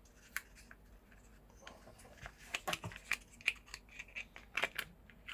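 Quick, sharp plastic clicks and knocks, a few at first and then a dense flurry from about two seconds in, from hands working the cover of a 400 A mega fuse holder back into place.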